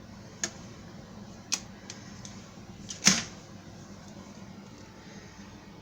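Several short sharp clicks and taps of serving utensils against dishes, the loudest just after three seconds in, over a steady low hum.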